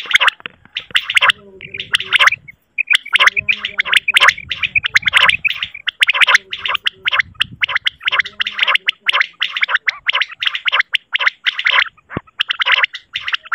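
Recorded common quail calls played as a hunting lure: rapid, closely repeated chirping notes in quick runs. A lower, steadier tone sounds under some of the runs in the first nine seconds.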